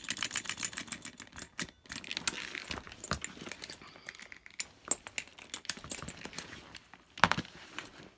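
Metal strap hardware of a Rebecca Minkoff Morning After Bag, swivel clips and rings, clicking and jangling as the strap is hooked and unhooked, with one louder clack about seven seconds in.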